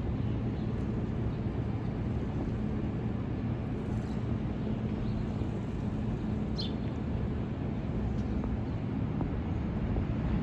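City street traffic noise: a steady low rumble with a constant low hum, and a brief high chirp about two-thirds of the way in.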